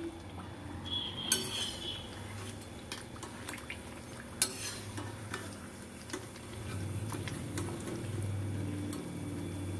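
A steel ladle scraping and clinking against a metal kadai while fried mathri are lifted out of hot oil, which sizzles softly underneath. A few sharp clinks stand out, the clearest about one and a half seconds in and again near the middle.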